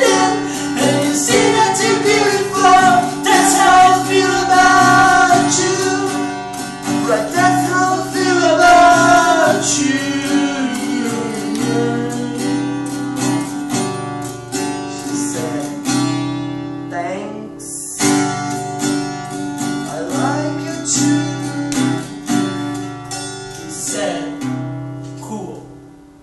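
Song played on strummed acoustic guitar, with a singing voice holding long notes over it for the first ten seconds or so. The guitar then carries on alone, stops briefly, comes back and fades out near the end.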